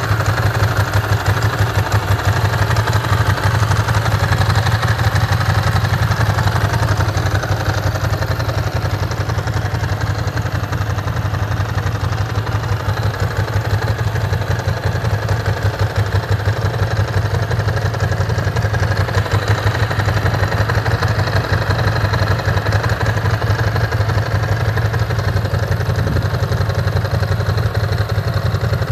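1998 Ducati ST2's 944 cc V-twin engine idling steadily, with an even rapid beat.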